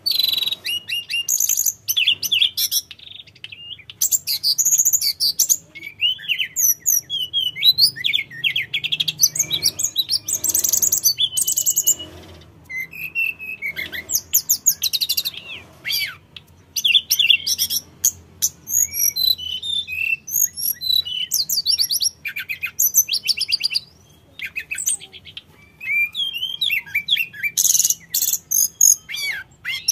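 Hill blue flycatcher singing continuously, a rapid, varied, high-pitched song of whistles and fast trills in long phrases with short breaks.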